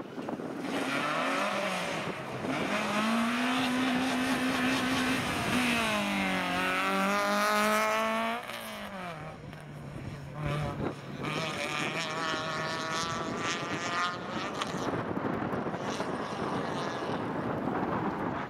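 Small hatchback rally car accelerating hard, its engine revving up and dropping back with several quick upshifts. It is loudest in the middle, then carries on at lower revs as the car pulls away.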